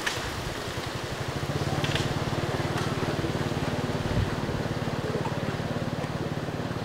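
A steady low mechanical hum with a fast, even pulse, like a motor running at idle, growing slightly louder about a second in. A few faint clicks sound above it.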